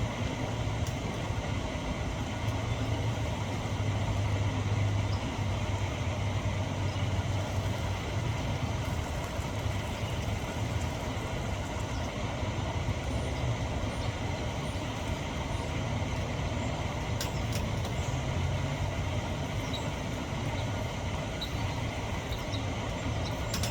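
A steady low hum or rumble, like a running engine or motor, that swells slightly now and then.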